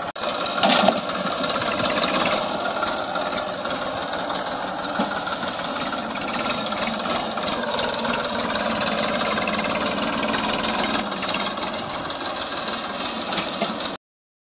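Massey Ferguson 1035 tractor's three-cylinder diesel engine running steadily as the tractor drives across sandy ground with a sprayer tank rig on the back. The sound cuts out for a moment near the end.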